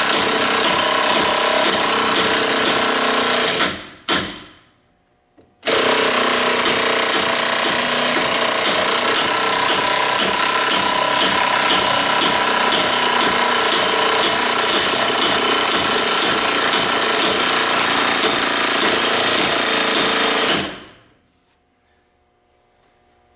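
Impact wrench hammering steadily as it drives a ball joint press, pressing a new ball joint into the steering knuckle. It lets off and winds down about four seconds in, starts again a couple of seconds later, and winds down once more near the end.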